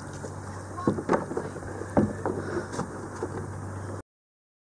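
Sea water splashing and lapping against the side of a small boat, with a few sharp splashes about one and two seconds in, over a steady low hum. The sound cuts off abruptly to silence about four seconds in.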